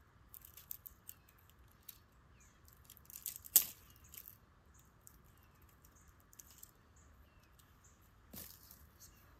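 Dry twigs and branches being snapped by hand into kindling: a run of small crackles and clicks, with one loud sharp snap about three and a half seconds in and another smaller snap near the end.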